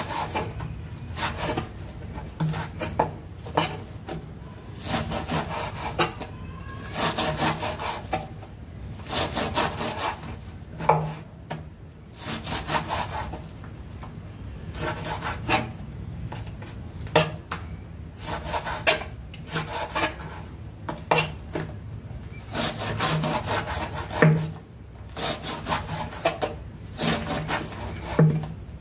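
Kitchen knife slicing raw pig lung on a wooden cutting board: the blade draws through the spongy lung and strikes the board, stroke after stroke at an uneven pace.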